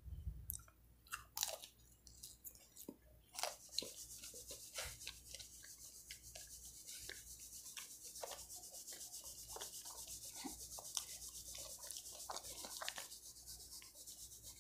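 Faint handling noises: scattered clicks and taps, joined about three and a half seconds in by a steady soft rubbing hiss.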